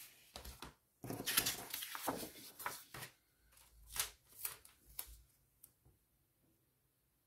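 Paper rustling and sliding as loose planner pages are moved across a desk, then a few light ticks and crinkles as a floral sticker strip is handled and lined up on the page.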